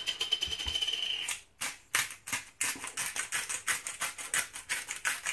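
Salt being shaken from a small salt pot: a dense rattle for about the first second, then a run of quick rattling shakes, about five a second.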